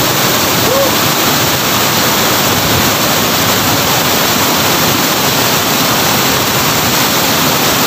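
Waterfall: the steady, even rush of falling water pouring into a plunge pool.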